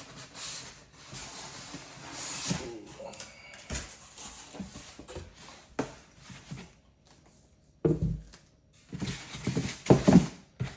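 Packaging rustling and items being handled and set down, with several sharp knocks and a few louder thumps near the end.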